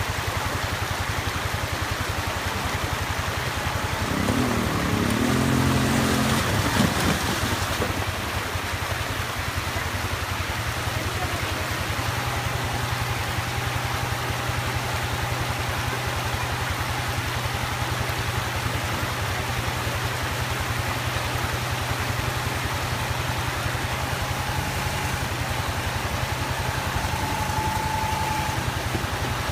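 ATV engine running at low speed under the steady rush of a shallow stream it is fording; about four seconds in the engine revs up louder for a few seconds, then settles back.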